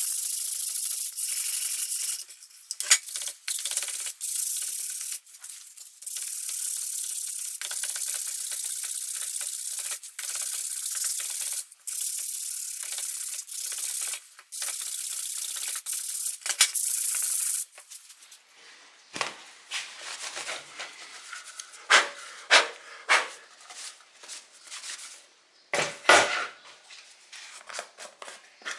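Hand sanding a wooden knife block with abrasive paper on a sanding block: steady rasping in long strokes with short pauses. About two-thirds of the way through the sanding stops and gives way to scattered taps and rustles as a sheet of sandpaper is handled.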